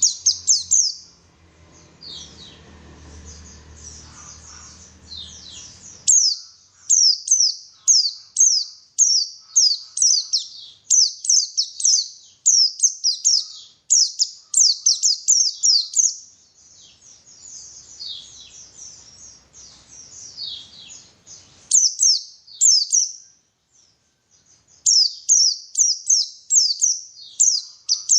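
White-eye (pleci) singing: fast runs of high, quickly falling chirps, phrase after phrase with short breaks and one brief pause near the end.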